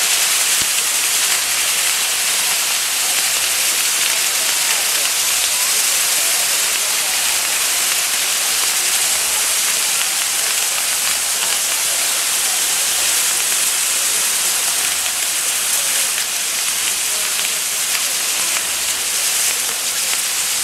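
Maltese ground-firework wheel spinning, its rows of burning gerbs giving a steady, loud rushing hiss.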